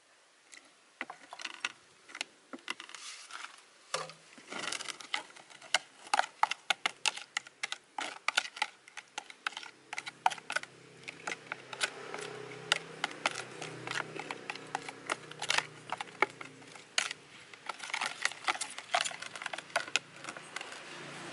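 Metal spoon clinking and scraping against a plastic bowl as a thin shrimp-paste and water mixture is stirred: rapid, irregular clicks.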